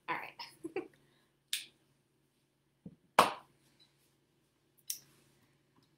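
A few sharp clicks and knocks of a plate and kitchen things being handled, the loudest a single knock about three seconds in, over a faint low steady hum.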